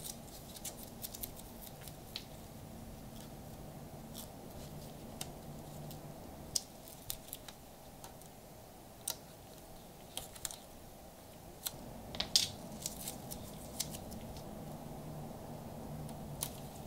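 Masking tape being handled and pressed onto a plastic car grille by gloved hands: scattered sharp crackles and clicks, busiest about twelve seconds in, over a low steady hum.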